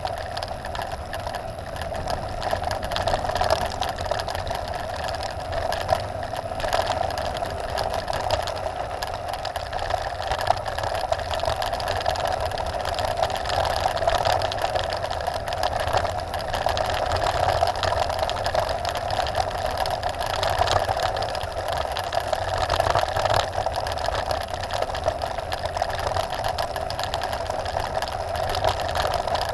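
Trek Top Fuel 9.8 full-suspension mountain bike coasting fast down a gravel forest road: steady rolling noise of the tyres on loose gravel with a continuous buzz and small rattles and knocks from the bumps.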